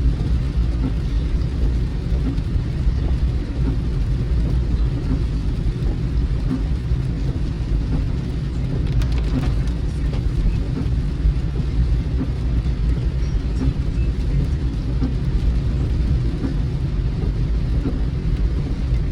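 Steady low rumble of a car driving, heard from inside the cabin: road and engine noise with rain on the car.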